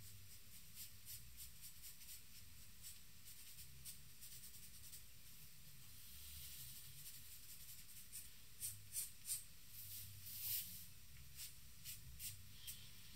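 Charcoal pencil scratching on paper in short, faint shading strokes. A few louder, sharper strokes come in the second half.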